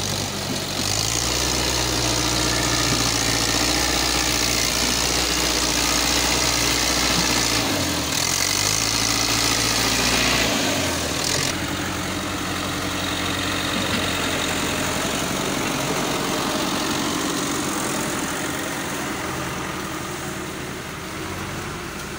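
Diesel farm tractor engine running steadily under load while pulling a trolley piled with sugarcane through a soft harvested field. Its note dips briefly twice, about eight and ten and a half seconds in. After about eleven seconds the low engine note fades to a lighter, steadier engine and drive noise.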